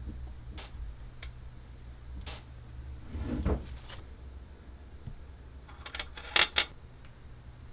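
Small handling noises from working on a metal RCA jack box: a few light clicks and a short rustle, then a quick cluster of sharp metallic clicks about six seconds in, over a steady low hum.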